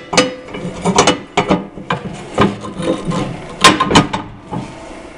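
Steel mounting brackets of a John Deere 42-inch blade being worked by hand against the tractor's front frame while an aligning pin is fitted: an irregular run of metallic clicks, clunks and scraping, the loudest knock about three and a half seconds in, quieter near the end.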